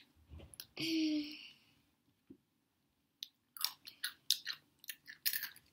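Takis, rolled corn tortilla chips, being bitten and chewed, with a quick run of sharp crunches through the second half. A short vocal sound comes about a second in.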